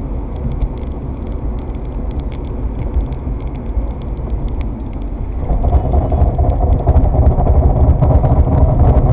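Car driving on a snowy road, heard from inside the cabin: a steady low rumble of engine and road noise that grows louder about halfway through.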